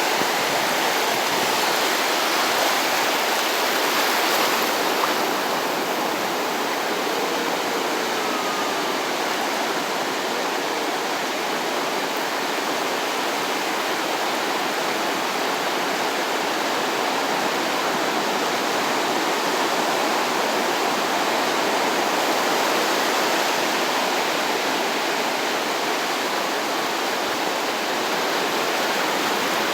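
Small waves on a calm sea breaking and washing up the shore: a steady rush of surf that swells slightly about four seconds in.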